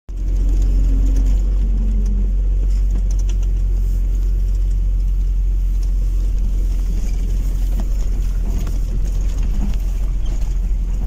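Steady low rumble of a car's engine and tyres, heard from inside the cabin while driving along an asphalt road.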